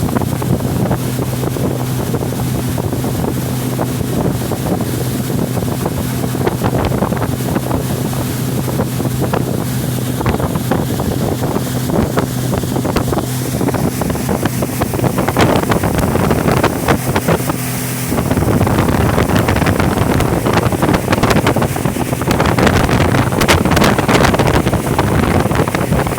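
A small motorboat's engine running steadily under heavy wind noise on the microphone and rushing water. About eighteen seconds in, the wind and water noise grows louder and covers the engine hum.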